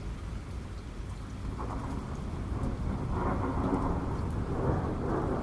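Steady rain with scattered drop ticks, and a rumble of thunder that builds from about a second and a half in and grows louder.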